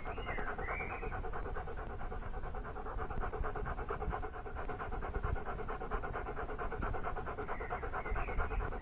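German Shepherd Dog panting rapidly in a fast, even rhythm of short breaths.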